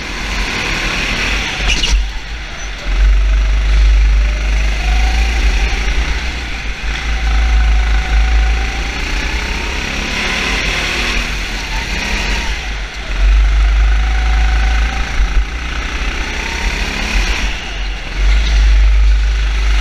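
A racing engine revving, its pitch climbing and falling several times as it accelerates and lifts off, over a heavy low rumble that comes and goes.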